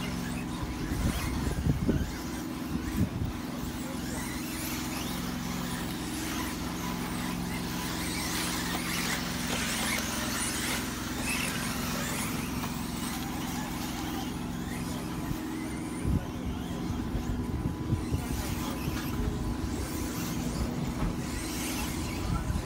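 Radio-controlled four-wheel-drive cars racing around a track: high-pitched motor whine and tyre noise that swells and fades as they pass, over a steady low hum, with a couple of sharp knocks.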